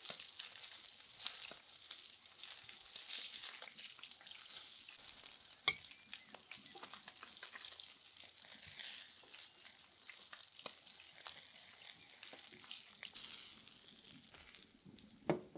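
Hot oil sizzling and crackling as small fish fry in a pan. A sharp click comes about six seconds in, and a louder knock comes near the end.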